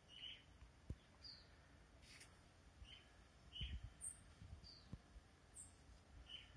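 Faint, thin, high chirps from a blackbird chick, about nine short calls spaced through the few seconds. A few soft low bumps from handling come between them.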